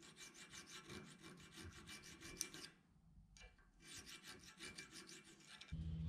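Hand file rasping across the steel shoulders of a Damascus knife's ricasso, riding on a carbide file guide: two faint runs of quick strokes with a short pause about halfway. A low steady hum comes in near the end.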